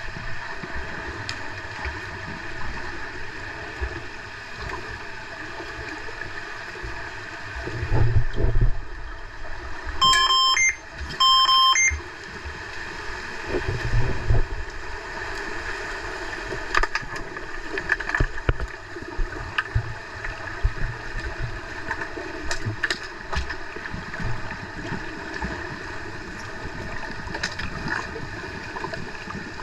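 Underwater sound in a swimming pool: a steady water hiss with scattered clicks and low thumps. About ten seconds in, two electronic beeps, each about a second long, from an underwater referee sounder.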